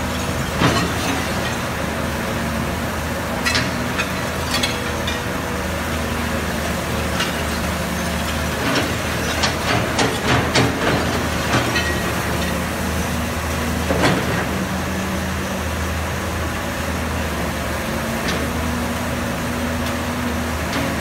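Caterpillar 320B hydraulic excavator's diesel engine running steadily under load as its bucket digs through rubble, with scattered knocks and clatters of debris, a cluster about ten seconds in and another near fourteen seconds.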